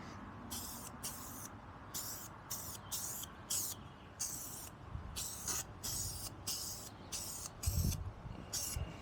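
Spray paint hissing out in many short bursts, each under half a second, as rusty metal primer and paint are sprayed onto the truck's front-end parts. There is a low bump a little before the end.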